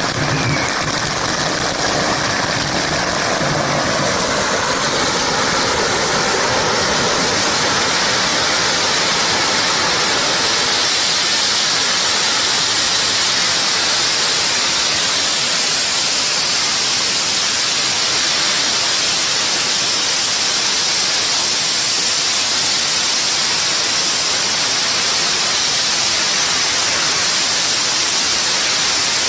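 Thousands of firecrackers exploding in one continuous, dense barrage: a solid, unbroken crackle at a steady loud level.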